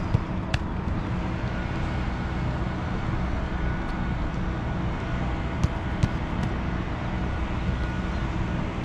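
Steady low outdoor rumble, with a few sharp thuds of soccer balls being struck during goalkeeper shooting drills.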